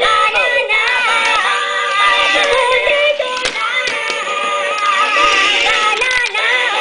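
High-pitched, Minion-style synthetic voices singing over a music backing.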